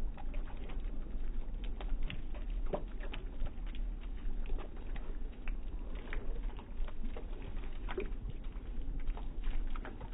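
Thin jets of water from a small statue fountain falling into a shallow basin, making an irregular patter of small splashes and trickling.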